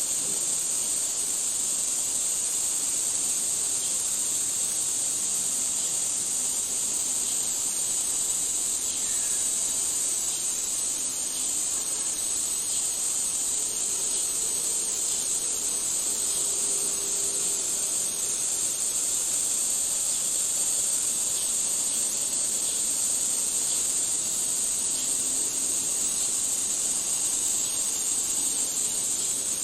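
Steady, high-pitched drone of a forest insect chorus, such as cicadas and crickets, going on without a break.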